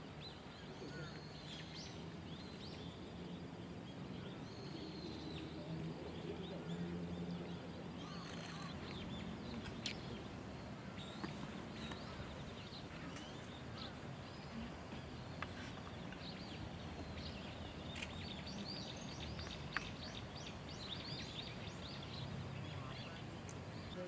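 Outdoor ambience: small birds chirping now and then over a low steady background murmur, with a few faint sharp clicks.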